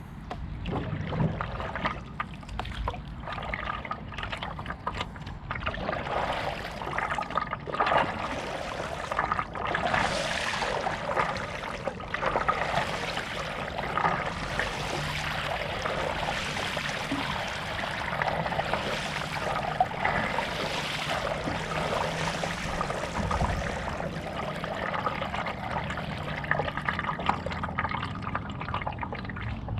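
Water splashing and trickling as a stand-up paddleboard is paddled along, with uneven surges every second or two from the paddle strokes.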